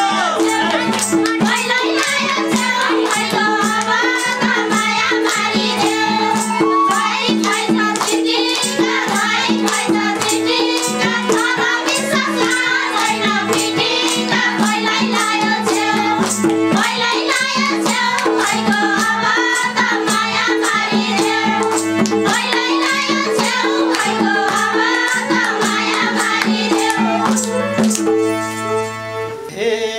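Nepali live dohori folk music: a madal drum beating a steady rhythm under a bansuri flute and harmonium melody, with women singing along and clapping. It eases off near the end.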